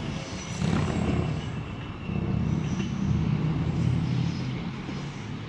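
Class 390 Pendolino electric train pulling away under power, a steady low rumble of its running gear and traction equipment that eases slightly near the end.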